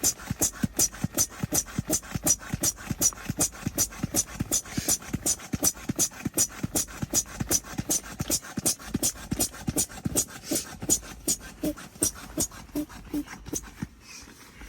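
Built-in hand-pressed pump of a self-inflating camping mattress working in a steady rhythm, a short puff of air about three times a second, stopping briefly near the end.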